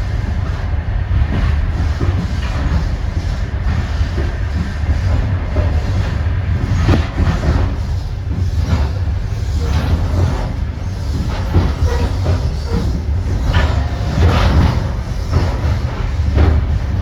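Passenger train running, heard from aboard: a steady low rumble of the moving coach with irregular knocks and clacks from the wheels and couplings.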